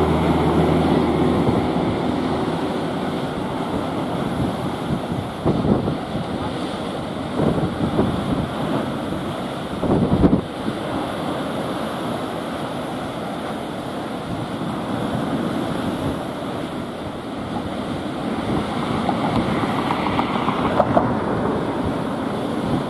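Strong wind buffeting the microphone over the steady wash of a rough sea breaking around the bridge piers, with harder gusts about five and ten seconds in. A low steady hum fades out in the first second or two.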